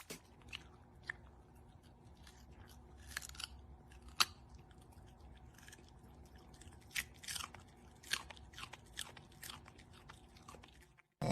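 Soft, irregular crunchy chewing: a scattering of crisp clicks and crackles at uneven intervals.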